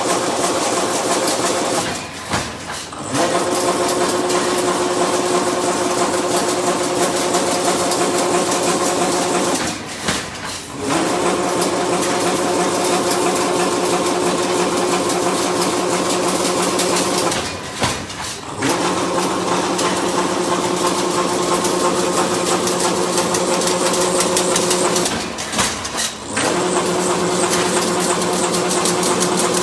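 Fully automatic chain link fence weaving machine running: a fast mechanical clatter over a steady motor hum. About every eight seconds the noise drops for about a second, then picks up again.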